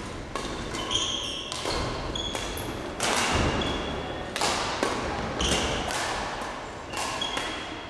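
Badminton rackets hitting the shuttlecock in a run of sharp, irregular cracks, mixed with brief high squeaks of court shoes on the sports-hall floor.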